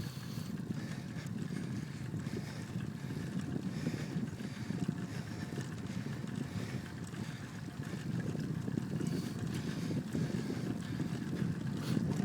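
Wind noise on the microphone of a camera riding on a moving bicycle, a steady low rumble that slowly gets louder as the bike picks up speed.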